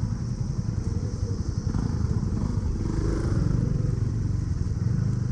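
Motorcycle engine running, a steady low rumble.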